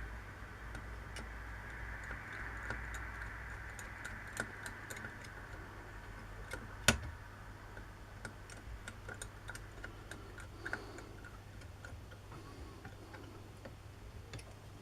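Light, irregular metallic clicks and ticks of small hand-drill parts being handled and fitted during reassembly, with one sharper, louder click about seven seconds in.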